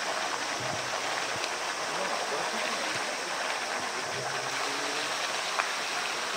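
Steady rushing and splashing of a water jet pouring into a polar bear's pool.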